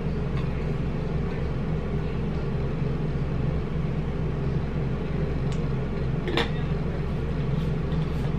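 A steady low hum, with two short clicks a little under a second apart, about two-thirds of the way through.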